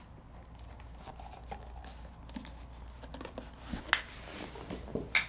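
Quiet handling noises: soft rustling with a few light clicks and knocks, about four seconds in and again near the end, as a leather dress shoe and a cloth shoe bag are handled.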